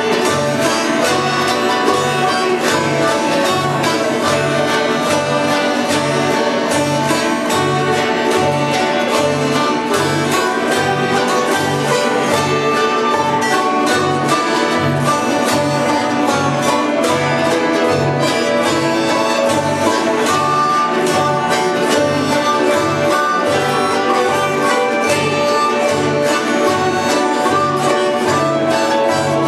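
Instrumental bluegrass-style music with banjo, guitar and fiddle over a steady, even bass beat.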